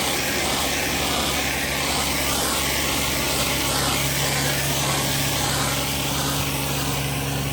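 A pressure washer's engine running steadily under load, with an even hiss of high-pressure water spraying onto concrete sidewalk.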